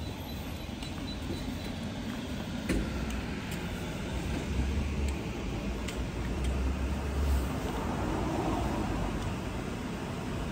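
Steady low rumble of city traffic, swelling twice in the middle, with a few light clicks.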